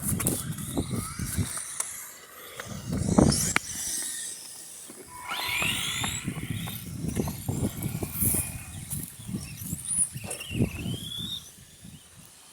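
Remote-control cars running on a track, their motors whining in short rising glides, over an uneven low rumble.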